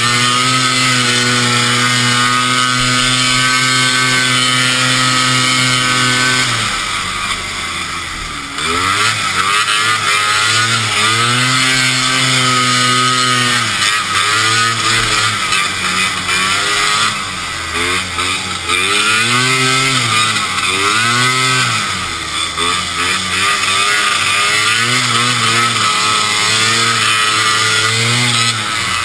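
Vintage racing snowmobile's two-stroke engine heard from the rider's helmet. It holds steady at full throttle for about six seconds, eases off briefly, then revs up and drops back again and again through the turns.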